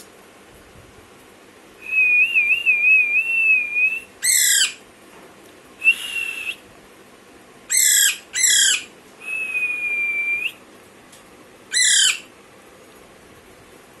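Young Alexandrine parakeet calling: a warbling whistle about two seconds in, then four short harsh squawks that drop in pitch, spaced a few seconds apart, with a short whistle and a longer level whistle that turns up at its end between them.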